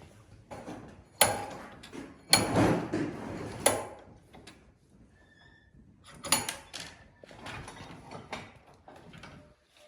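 Tools and gear being handled: several sharp knocks and clatters, with a short stretch of rattling and scraping after the second knock.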